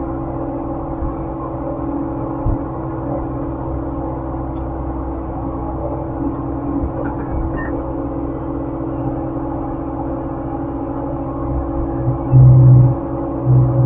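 Excavator's diesel engine and hydraulics running steadily, heard from inside the operator's cab, a drone with a steady whine in it. Near the end the low engine sound swells louder in two short surges, as the machine takes load.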